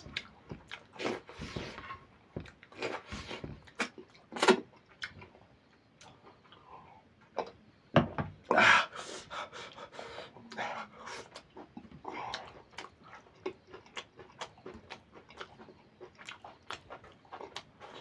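Close-miked eating: wet chewing and lip-smacking of curry with rice, full of small mouth clicks. It gets louder about four seconds in and again around eight seconds in.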